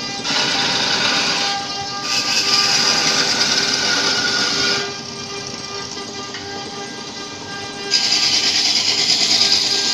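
Wood lathe running while a hand-held turning tool cuts into the spinning wood, giving a hissing, scraping cut over the steady whine of the machine. The cutting hiss is strong for the first few seconds, eases off around the middle, and comes back strongly near the end.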